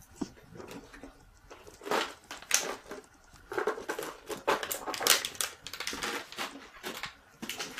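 An empty plastic drink bottle crinkling and crackling as a poodle puppy bites and carries it, in quick irregular runs from about two seconds in until near the end.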